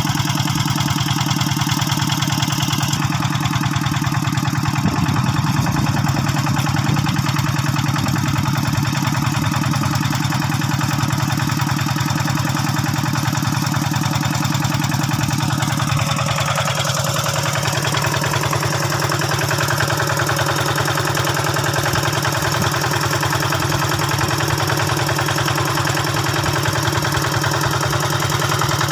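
Old hand tractor engine running steadily, its sound shifting slightly about two-thirds of the way through.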